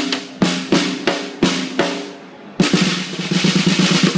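Snare drum struck about six times at an even pace, roughly three hits a second, then played in a fast roll from a little past halfway. The head is tuned loose and damped by a small muffling strip, giving a looser, deeper ring.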